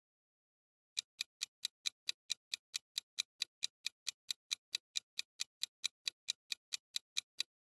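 Clock-ticking sound effect counting down a quiz timer: rapid, even ticks about four to five a second, starting about a second in and stopping shortly before the end.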